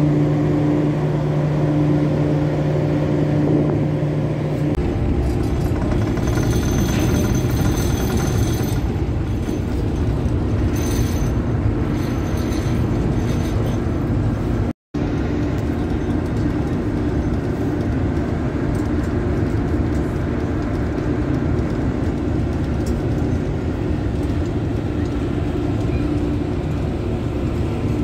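Passenger ferry under way: steady low engine drone with a broad rushing noise. A steady hum at the start gives way to a broader rumble a few seconds in, and the sound cuts out for an instant about halfway.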